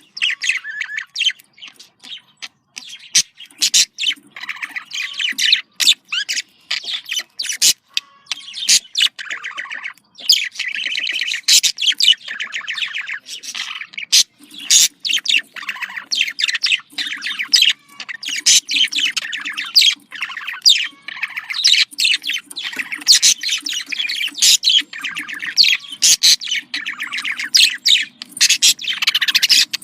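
Budgerigars chirping and warbling continuously, with rapid chatter and sharp clicks.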